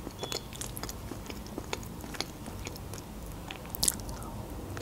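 Close-miked eating sounds: soft, wet chewing and small mouth clicks while eating Olivier salad, with a sharper click near the end as a fork goes into the mouth.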